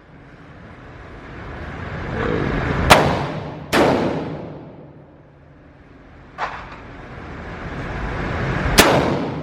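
Four gunshots at uneven intervals, each followed by a fading echo, with a rising rush of noise swelling up before the first and the last.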